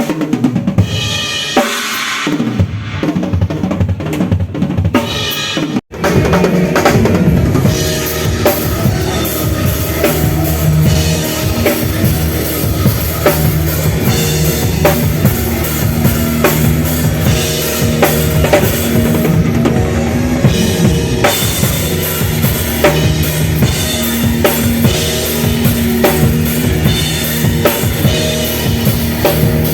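Drum-heavy music: a full drum kit with bass drum and snare strokes over steady low bass notes. The sound cuts out for an instant about six seconds in, then picks up again.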